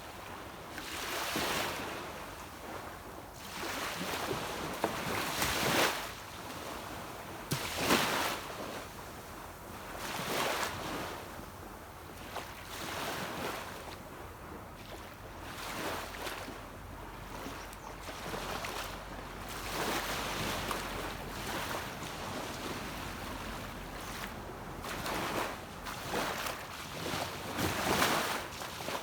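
Small sea waves breaking and washing up a beach, a new surge every two to three seconds. A faint low hum of a distant boat engine sits under the surf through the middle.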